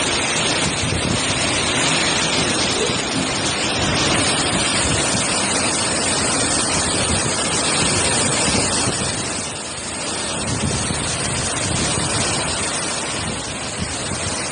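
Hurricane-force wind rushing through palm fronds and buffeting the microphone: a loud, steady noise that eases briefly about two-thirds of the way through.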